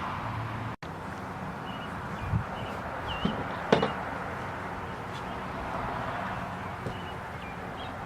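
A few light knocks and clicks from the metal fork stem mount being handled and fitted. They sit over a steady outdoor background hum with faint bird chirps, and the sharpest knock comes a little under four seconds in.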